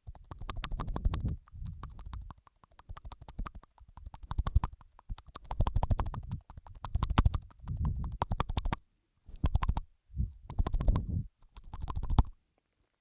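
Close-miked ASMR mouth sounds, layered: rapid wet clicks and smacks in bursts, with a few short pauses in the second half.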